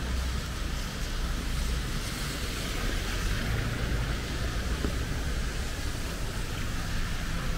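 Street ambience: a steady hiss and low rumble of road traffic, with no single event standing out.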